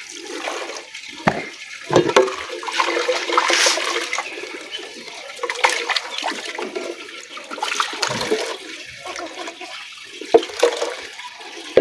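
Liquid pouring and splashing into a container, unevenly, with a few sharp knocks.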